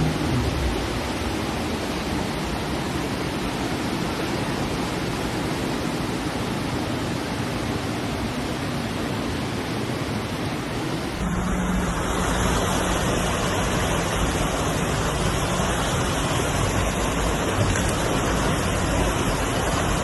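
Loud, steady rush of floodwater. About eleven seconds in it switches abruptly to a fuller, slightly louder rush.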